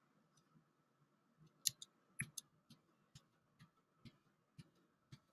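Faint clicking: a few uneven clicks, then a steady run of soft ticks about two a second.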